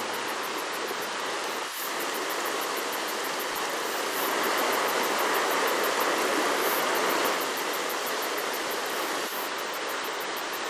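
Fast-flowing river water rushing over rocks and rapids: a steady, even rush that swells a little in the middle.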